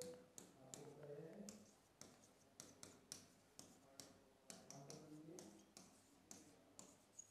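Faint, irregular taps and clicks of a pen writing on a board, about two a second, with low mumbling of a man's voice now and then.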